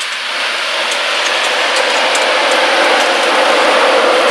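Class 91 electric locomotive moving off under power, its running noise steadily growing louder, with a hum in the middle range strengthening toward the end and a few light clicks.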